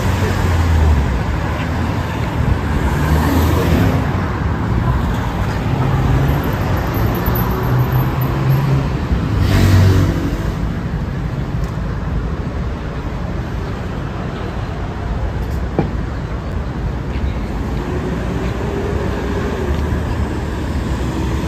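City street traffic: a steady wash of road noise from passing cars with low engine rumble that swells as vehicles go by, loudest as one passes close about ten seconds in.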